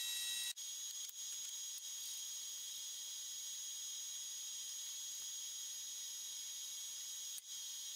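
Grizzly jointer-planer running: a steady high hiss with a thin whine, breaking off for an instant about half a second in and again near the end.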